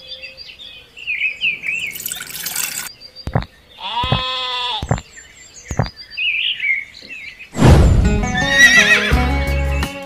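Dubbed-in farm sound effects: short bird chirps, a brief rush of noise, and a sheep bleat about four seconds in. Music with a steady bass beat comes in loudly near the end.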